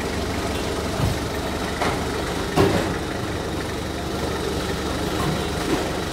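TCM forklift engine running steadily at idle, with three short knocks a second or so apart near the middle, the last the loudest.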